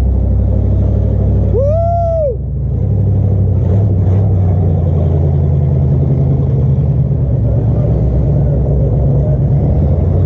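Steady low drone of a running vehicle. About two seconds in, a short whistle-like tone rises and falls once.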